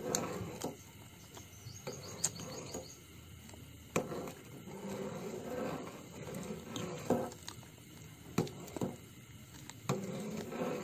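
Metal ladle stirring a frothy gelatin mixture in a metal pot, scraping through the liquid and knocking against the pot's side every second or so, at irregular intervals.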